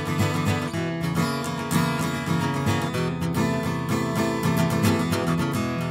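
Background music: strummed acoustic guitar, steady and without singing.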